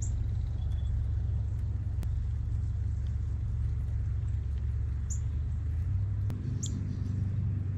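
Steady low outdoor rumble, with a few short, high bird chirps at the start and about five and six and a half seconds in.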